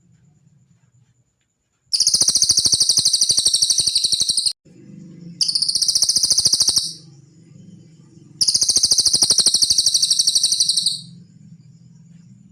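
Cililin songbird giving a very fast, high-pitched trill in three bursts of about one and a half to two and a half seconds each, with short breaks between them. A faint low hum is heard between the bursts.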